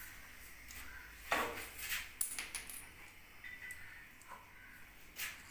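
Several sharp clicks and clinks of small toilet-tank fittings, a bolt, nuts and washers, being handled and set down on a tiled floor, the loudest a little over a second in.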